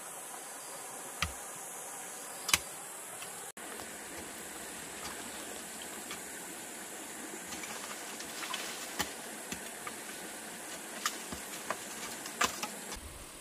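A steady high-pitched insect drone, with scattered sharp clicks and knocks over it; the loudest come about two and a half seconds in and near the end.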